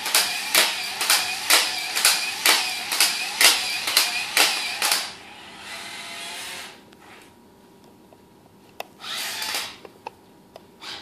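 Combat Creatures Attacknid spider robot walking: its geared motors whir, with a rhythmic clack about twice a second as the legs step, for about five seconds. The whir then softens and stops, and comes back briefly a couple of seconds before the end.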